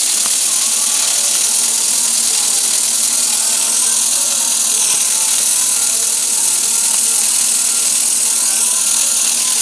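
Miniature V-twin steam engine running fast just after starting, fed from a small vertical boiler: a steady high hiss of steam with a fast mechanical buzz underneath.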